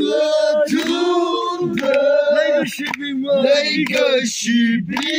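A group of men and women singing together in a chant-like song, holding long notes. Hand claps fall about once a second.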